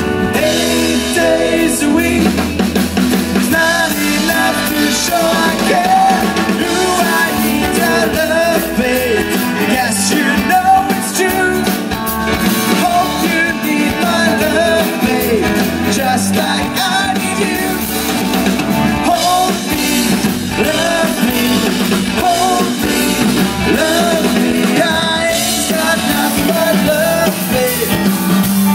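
Live band playing a rock song: a man singing into a microphone over guitars, drum kit and keyboard.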